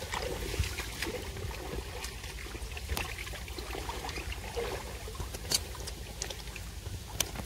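Shallow water splashing and trickling as a hand moves about in it along a muddy bank, with a few small scattered clicks.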